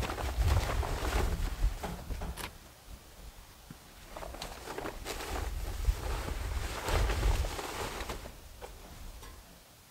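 Plastic tarp crinkling and rustling as it is pulled off a sawmill, with wind buffeting the microphone in two gusty spells that die down near the end.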